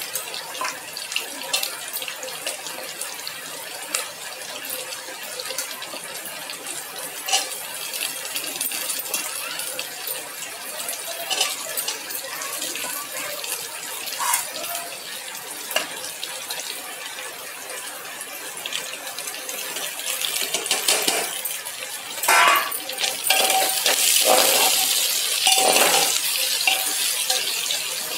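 Onions and vegetables sizzling in hot ghee in an aluminium pressure cooker, with a spatula scraping and clicking against the pot as they are stirred. The sizzle and stirring grow louder from about twenty seconds in.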